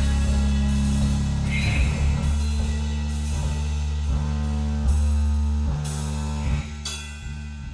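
Instrumental rock jam: guitar over low bass notes and a drum kit, with cymbal crashes about five, six and seven seconds in.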